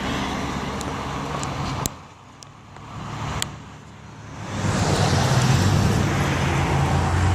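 Road traffic: a loud wash of vehicle noise drops away about two seconds in. From about halfway a motor vehicle grows louder, with a steady low engine hum.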